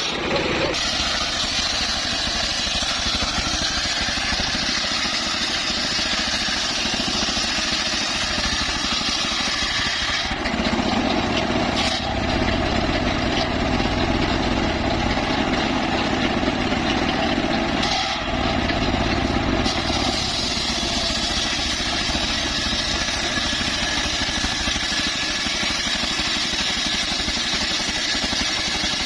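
Homemade bandsaw running steadily with an engine-like drone. For about ten seconds in the middle its sound turns deeper and the hiss drops away, then it goes back to the earlier tone.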